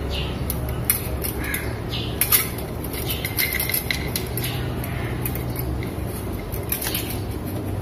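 Scattered light metallic clicks and taps as a thin copper head gasket is handled and slid down over the cylinder studs of a motorcycle engine block, the sharpest pair about two and a half seconds in.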